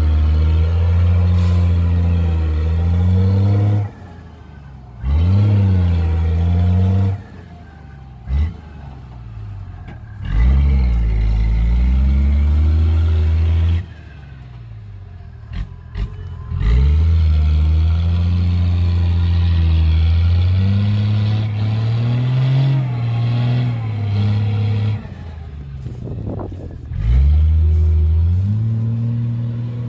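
A loaded dump truck's diesel engine revs hard in about six long bursts, its pitch rising and falling, and drops back between them. The wheels are bogged in deep mud and the truck is struggling to pull itself out.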